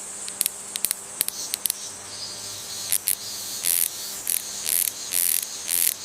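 Forest insects calling: a steady high-pitched hum with a few sharp clicks over the first two seconds, then loud rhythmic high-pitched chirps about twice a second from about three seconds in.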